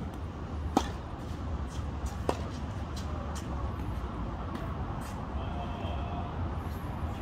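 Tennis balls being hit with racquets and bouncing on a hard court during a practice rally: a sharp pop about a second in, the loudest, another a second and a half later, and fainter knocks after. A steady low outdoor rumble runs underneath.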